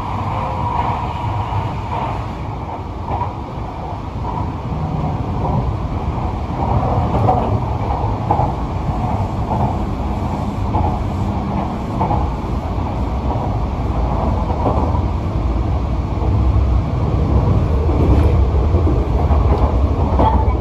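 Yokohama Municipal Subway Green Line 10000 series linear-motor train running, heard from inside its cab: a steady low rumble of wheels on rail that grows louder toward the end.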